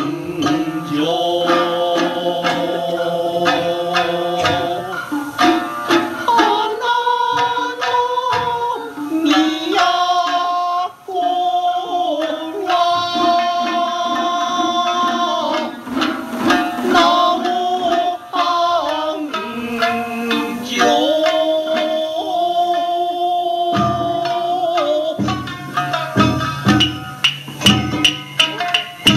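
Traditional Japanese dance song played over PA loudspeakers: a sung melody with held, wavering notes over percussion strikes. In the last five seconds the percussion settles into a steady beat of about two strokes a second.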